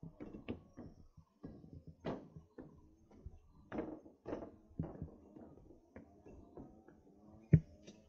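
A hiker's footsteps: irregular knocks and scuffs, one or two a second, with one sharper knock near the end.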